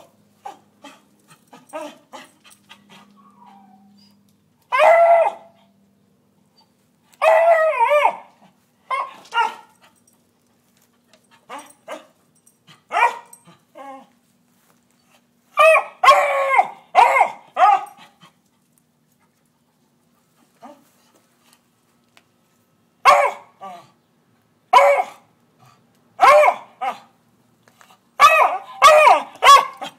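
A beagle barking repeatedly at squirrels in a tree, in bursts of short barks. Some calls are drawn out into longer, wavering bays, with pauses of a few seconds between bursts.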